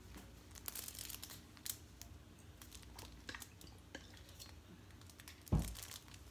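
Disposable plastic gloves and wound-care supplies crinkling and clicking as they are handled, with one dull thump about five and a half seconds in.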